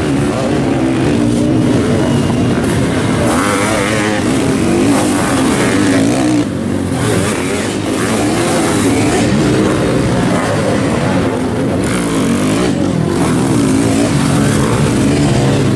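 Sidecar motocross outfits racing, several engines revving up and down, loud and continuous, as the outfits are launched over a jump.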